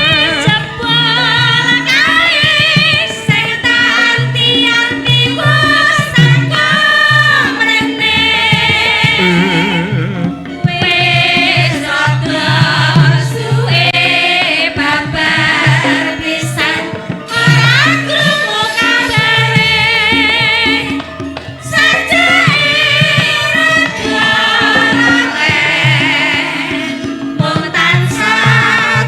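Live Javanese music with a singing voice carrying wide vibrato over hand-drum (kendang) beats and sustained gamelan accompaniment.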